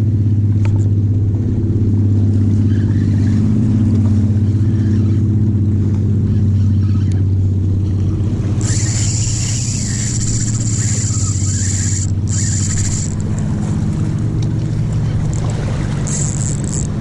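A motorboat engine droning steadily. From about 8.5 s to 13 s, and again near the end, cloth rubs across the camera microphone with a rustling hiss.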